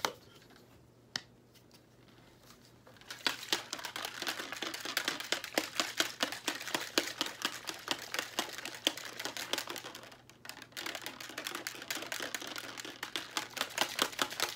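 Plastic shaker bottle being shaken hard to mix a drink powder into water, the loose shaker ball inside rattling and clacking in rapid strokes. A couple of single clicks come first, the shaking starts about three seconds in and pauses briefly about ten seconds in.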